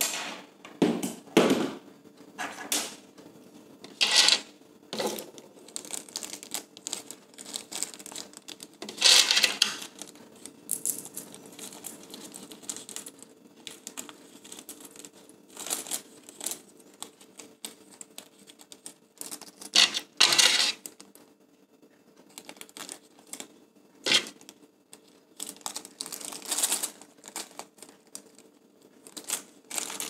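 Small metal 1/4-inch D-ring screws clinking against each other and tapping on a tabletop in irregular clicks, with plastic packaging bags crinkling in short bursts as they are handled.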